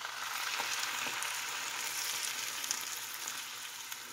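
Broth poured into a hot skillet of browned pulled pork, sizzling with small crackles. The sizzle starts suddenly as the liquid hits the pan and slowly dies down.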